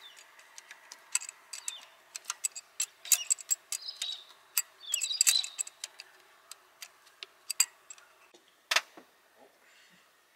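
Irregular sharp clicks and light taps of hand work with tools, with two short scraping rustles around four and five seconds in and one louder click near the end.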